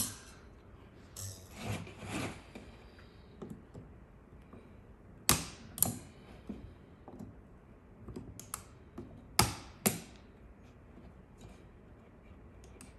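Side cutters snipping through the nickel strip on a Milwaukee RedLithium battery pack: several sharp snaps spread over the seconds, two of them in pairs about half a second apart, with handling rustle between.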